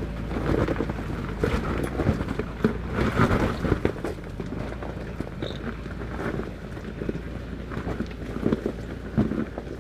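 Toyota 4Runner crawling over loose rock: tyres crunching and stones knocking and clattering irregularly under the truck, over the steady low hum of the engine.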